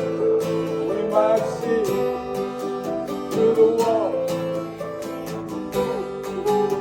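Acoustic guitar strummed in a steady rhythm during a live song, sustained notes ringing under the strokes.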